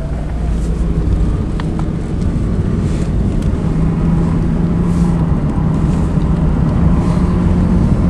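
Car engine and road noise heard from inside the cabin while driving: a steady low rumble with an engine hum.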